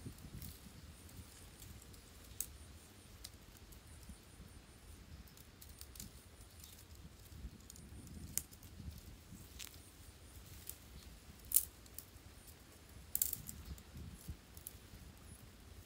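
Thin dry branches rustling and clicking against each other as they are bent together at the top of a tepee-style pole frame. Scattered sharp clicks and snaps run over a faint low rumble, the loudest about three-quarters of the way through.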